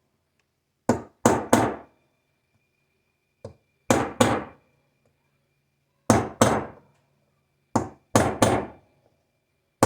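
Hammer striking a punch, about ten sharp metallic taps in quick groups of two or three with brief ringing after each, driving a Cummins crankshaft seal down evenly onto its installer tool.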